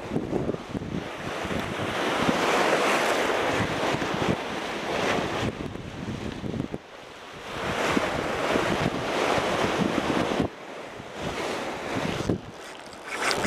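Sea surf washing against shoreline rocks, with wind blowing across the microphone. The wash swells and eases, loudest about two to five seconds in and again around eight to ten seconds.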